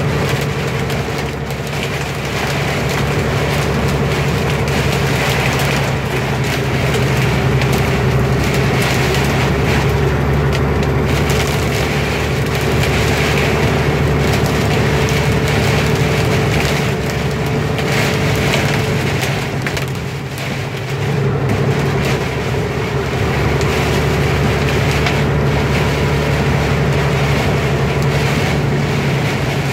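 Heavy rain beating on a car's roof and windshield, heard from inside the moving car over a steady low drone of engine and road noise.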